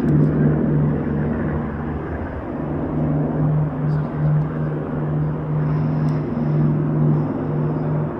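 Boeing B-29 Superfortress's four Wright R-3350 radial engines and propellers droning as the bomber approaches low overhead: a loud, steady low drone with a regular pulsing beat.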